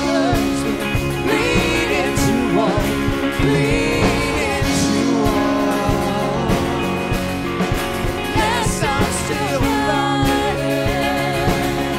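A woman singing into a microphone, backed by a live band with bass guitar and drums. Her voice bends and slides over held chords.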